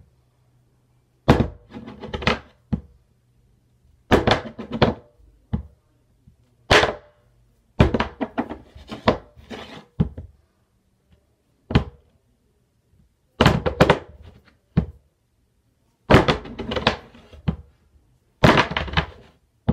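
Rolls of tape, one masking tape and one black, flipped and landing on a wooden tabletop: sharp thunks and short clattering bounces. There are about ten quick clusters of knocks, one every second or two, with silence between.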